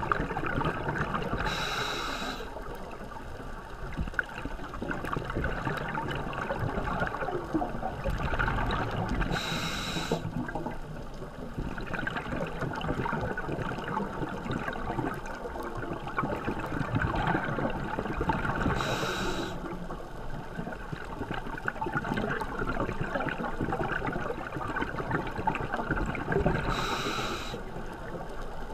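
Scuba regulator breathing underwater: a brief hissing breath about every eight or nine seconds, four in all, with steady bubbling and water noise between.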